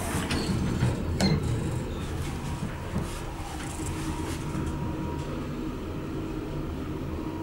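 ThyssenKrupp machine-room-less traction elevator: the car doors shut with a click about a second in, then the car travels down with a steady low hum.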